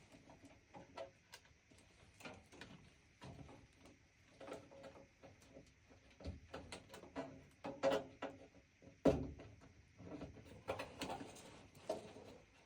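Scattered, irregular clicks, knocks and rattles of parts being handled, with one louder knock about nine seconds in.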